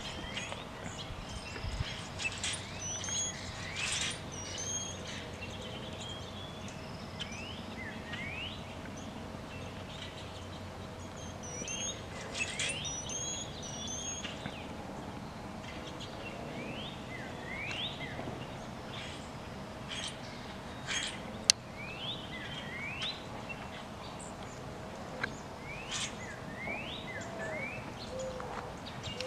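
Wild songbirds calling outdoors: many short, rising chirps and some higher whistled notes, coming in loose groups. A faint steady hum runs under them, and there is a single sharp click about two-thirds of the way through.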